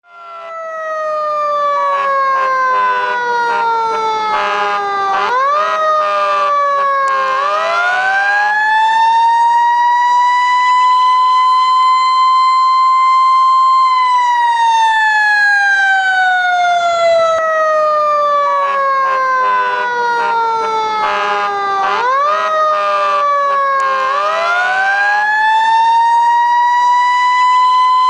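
Fire engine siren wailing in long, slow cycles: the pitch slides slowly down, gives two short upward yelps, then winds back up to a steady held pitch, and the whole cycle runs twice.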